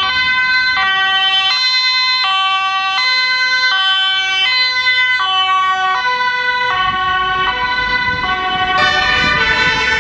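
Ambulance two-tone siren, switching between a high and a low note about every three-quarters of a second. Engine and tyre rumble grows as the ambulance passes close about seven seconds in, and a second siren overlaps near the end.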